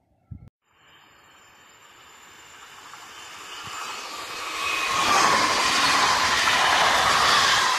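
SNCF Z 24500 (TER 2N NG) double-deck electric multiple unit approaching and passing close by, its noise building steadily for about five seconds to a loud, steady rush of wheels on rails with a high whine held through it. A brief knock comes just before the train is heard.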